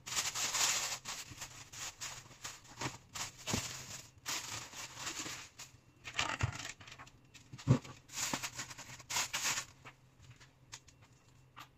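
Plastic bags and packaging rustling and a cloth wiping a cabinet door, in irregular bursts with a couple of light knocks. The handling quietens near the end.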